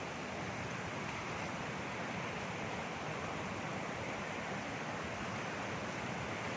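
Waterfall water rushing in a steady, unbroken roar.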